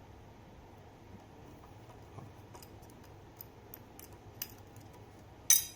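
Small metallic clicks and taps from bicycle chain parts and hand tools being handled, more frequent in the second half, with one much louder sharp clack near the end.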